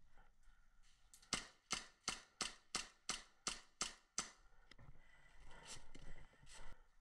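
Airsoft gun firing a quick run of about ten single shots, roughly three a second, then one more shot near the end.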